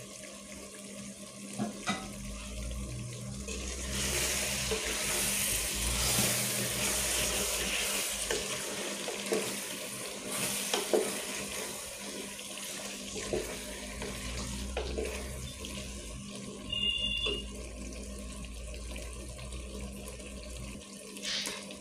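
Chicken and potato curry sizzling in an aluminium pot: a steady hiss, with a few short scrapes and knocks as a wooden spatula stirs it.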